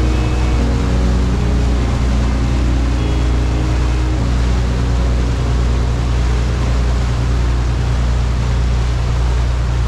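Steady drone of the Garbe sightseeing boat under way: a low engine hum under the constant rush of water and wind. Soft background music fades out in the first few seconds.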